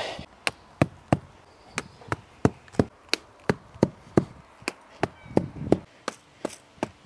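Rubber mallet repeatedly knocking boundary-wire pegs into a lawn to fix a robot mower's perimeter cable, about three sharp blows a second in a steady rhythm.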